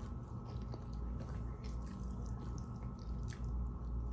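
A person chewing food close to the microphone: irregular soft, wet mouth clicks and smacks over a steady low hum.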